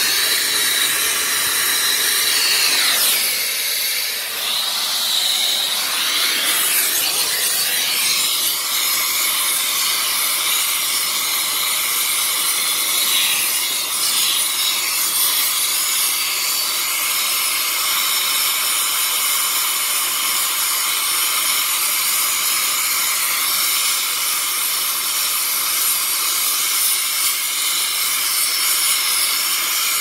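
Air-acetylene torch flame hissing steadily while it heats a copper line set joint at a service valve for brazing. The hiss wavers over the first several seconds, then holds steady.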